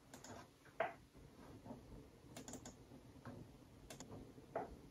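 Faint computer keyboard keystrokes, a scattered handful of taps.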